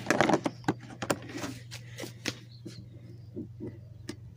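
Hand tools being handled and taken out of a plastic tool-kit case: a run of light clicks and clinks, densest in the first second and a half and then a few scattered ones, over a steady low hum.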